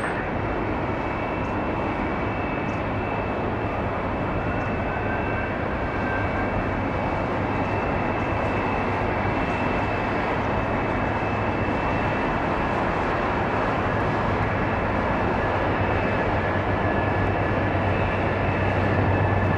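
Jet airliner engines running steadily, a broad rumble with a high whine over it, slowly getting louder.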